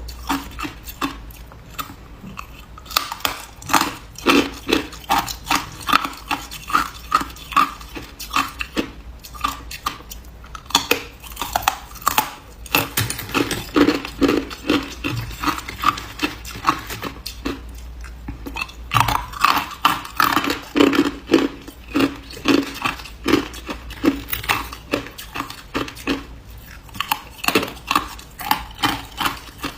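Ice being bitten and chewed close to the microphone: a steady run of sharp crunches, about one to two a second.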